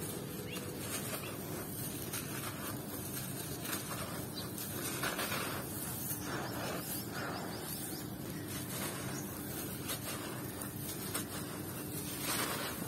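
Hands crushing moulded balls of dry sand and fine gravel: a gritty crunching and crumbling, with grains pouring and trickling through the fingers. It grows louder and more crackly about five seconds in and again near the end.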